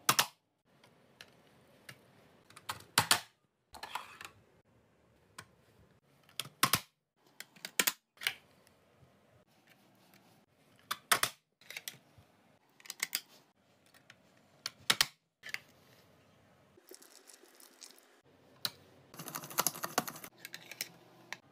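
Plastic vegetable chopper with a hinged lid and grid blade: the lid is pressed down to push vegetables through the blade, giving a sharp plastic clack every second or two, with a quick run of clicks near the end.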